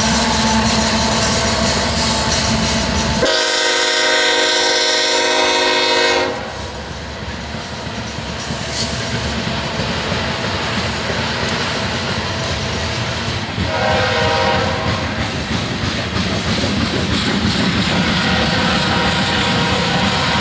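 Diesel locomotive air horn sounding three separate chords: a long blast of about three seconds, a short one about ten seconds later, and another starting near the end. Under the horn is the continuous rumble and rail noise of a passing train.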